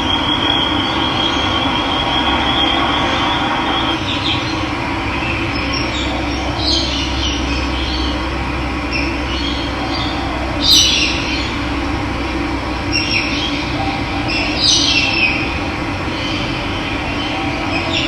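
Running water flowing steadily, with wild birds giving several short calls that fall in pitch, the loudest about two-thirds of the way through.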